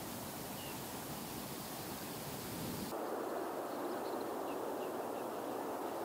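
Steady outdoor field ambience, a rushing noise haze that changes in character at an edit about halfway through. A few faint, short high chirps come after the change.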